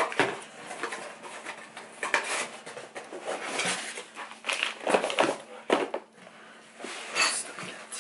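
Small cardboard parts boxes being lifted out of a shipping carton and set down on a wooden table: irregular rustles, scrapes and light knocks.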